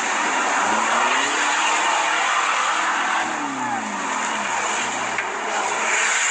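Off-road 4x4 engine revving: its pitch climbs over the first couple of seconds and drops back around three to four seconds in, over a steady loud rushing noise.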